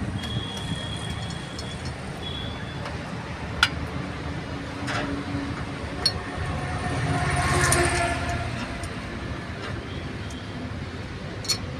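Steady low vehicle rumble with a few sharp metallic clinks from hand work on a truck's propeller-shaft universal joint. The rumble swells briefly a little past the middle.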